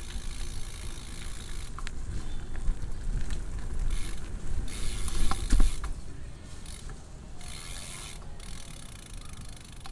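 BMX bike's rear hub ratcheting in rapid fine clicks as the bike coasts, over a low rumble of tyres rolling on concrete.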